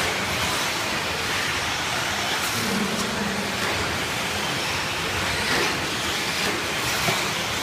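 A pack of electric 1/10-scale 4x4 short-course RC trucks racing, making a steady noise of motors and tyres with a few faint knocks mixed in.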